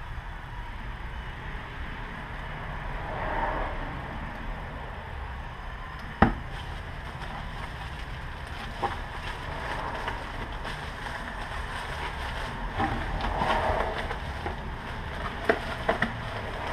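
Plastic packaging and cardboard rustling and crinkling as small car parts are handled and unwrapped, with one sharp click about six seconds in and a few lighter clicks near the end, over a steady low background rumble.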